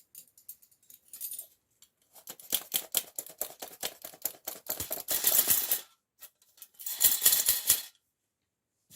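Rapid clicking and rattling in a mixing bowl during baking prep, in two bursts, a longer one and then a shorter one about seven seconds in.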